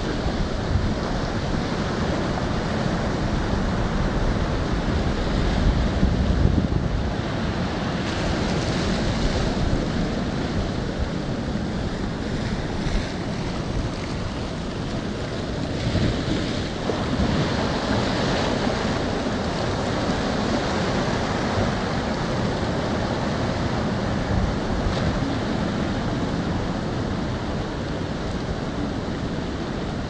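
Surf breaking and washing up a sandy beach: a continuous rush of water that swells and eases as the waves come in, with wind noise on the microphone.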